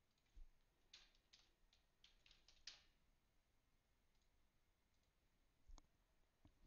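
Near silence with a few faint clicks of a computer keyboard and mouse: a quick run of keystrokes in the first three seconds and one more click near the end.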